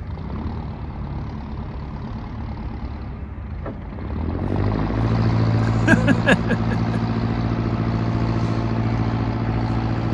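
A passing boat's engine running with a steady low chug that sounds like a tractor engine. It grows louder about four seconds in and holds there, with a few light clicks about six seconds in.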